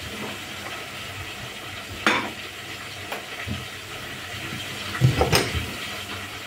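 Food frying in hot oil in a pan, a steady sizzle. Clinks and clatters of pans and utensils over it: a sharp one about two seconds in, and a louder cluster around five seconds in.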